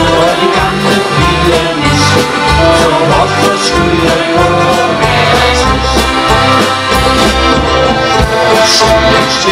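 Accordion-led band playing an instrumental passage between sung verses: sustained accordion chords and melody over a steady, pulsing bass beat.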